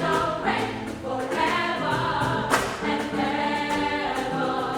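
A choir singing in harmony, several voices holding chords that change every second or so.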